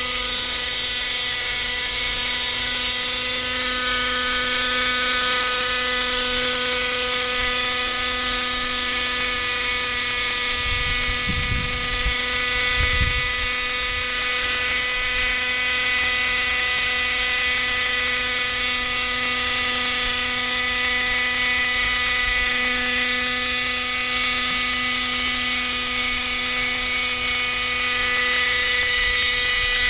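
Radio-controlled model helicopter flying, its motor and rotor giving a steady whine that holds one pitch.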